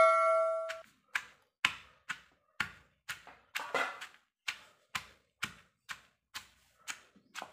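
Wooden pestle pounding whole green chillies in a stone mortar, dull even knocks about two a second. A metal ringing fades out in the first second.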